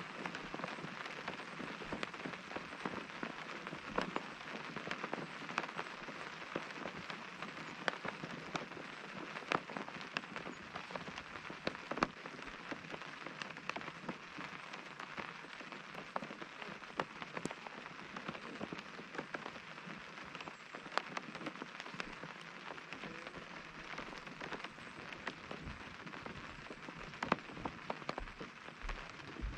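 Rain falling on a tent: a steady patter with many separate drops ticking sharply on the fabric.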